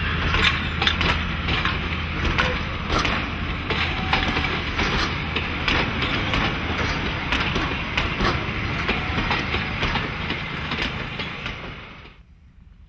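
Passenger carriages rolling past close by: steel wheels running on the rails with a steady rumble and many irregular clacks and knocks over the rail joints. Near the end the sound drops suddenly to a faint background.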